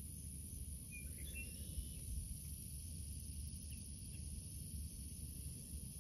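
Outdoor marsh ambience: a steady high-pitched insect buzz over a low wind rumble on the microphone, with a couple of short, faint bird chirps about a second in.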